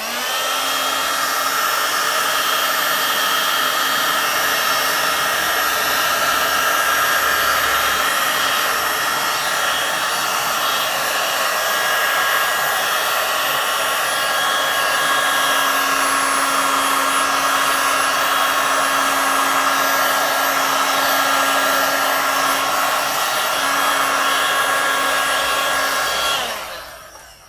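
Electric heat gun (paint stripper) blowing hot air on its low-airflow, highest-heat setting: a loud steady whoosh with a motor whine. It switches on at the start and winds down about a second before the end.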